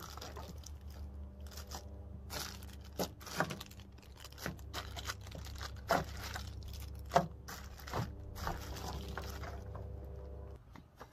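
Clear plastic bags of small accessories and a cardboard box being handled, crinkling with scattered sharp crackles. A steady low hum runs underneath and stops near the end.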